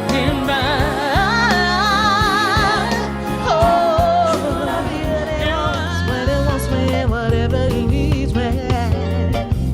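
A solo voice singing held, wavering notes with strong vibrato and sliding runs over a backing band with drums.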